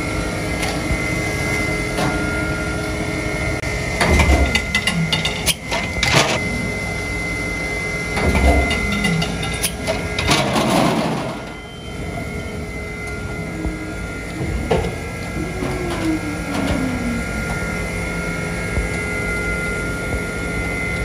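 Plastic injection moulding machine running, its hydraulics humming steadily. Heavy thumps come a few seconds in and again before the middle as the mould moves. A burst of clatter follows midway as a shot of freshly moulded PET bottle preforms is ejected and drops, and later a whine falls in pitch.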